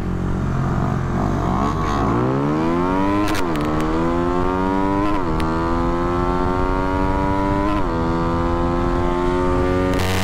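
Honda RS150's engine accelerating hard through the gears in a drag run. Its pitch climbs in each gear and drops back at three upshifts, about three, five and eight seconds in.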